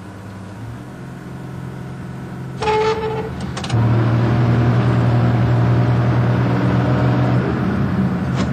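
Truck engine running under load, heard from inside the cab and growing louder. A brief higher-pitched tone sounds about three seconds in, then from about four seconds in the engine note is louder and holds a steady pitch.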